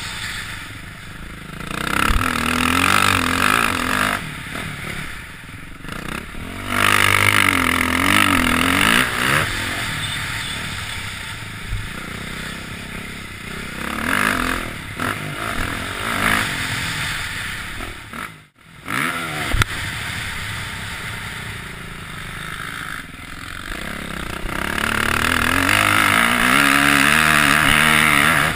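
Motocross motorcycle engine heard from on board, revving up and dropping back again and again as the throttle opens and shuts. About two-thirds of the way through, the sound cuts out almost completely for a moment.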